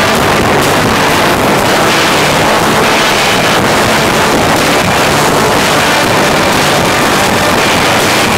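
Live rock band playing loud, electric guitar and drums, heard through an overloaded recording made beside a PA speaker, so the music is distorted into a dense, steady wall of noise with faint drum hits.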